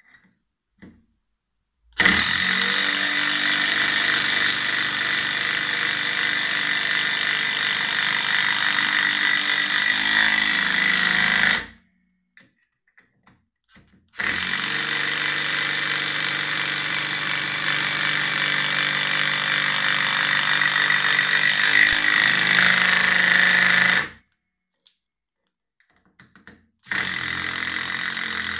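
Bosch GDR 10.8 V-EC brushless cordless impact driver hammering long wood screws into a timber beam. It runs steadily for about ten seconds at a time, twice, and a third run starts near the end.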